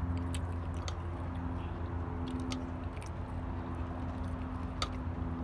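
A person chewing food, with scattered small mouth clicks, over a steady low hum.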